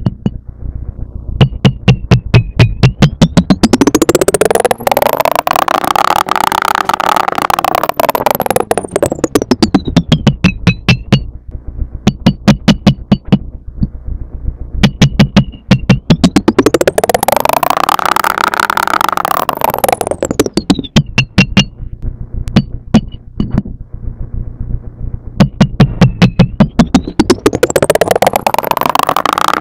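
Background electronic music: a fast, steady run of sharp percussive beats, with a synthesizer tone that glides up and back down over several seconds, three times.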